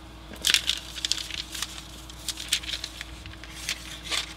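Paper catalog pages crackling and tearing as the edge of a freshly sharpened steel lawnmower blade is pushed through them, a run of short, irregular crackles. The edge cuts the paper only a little.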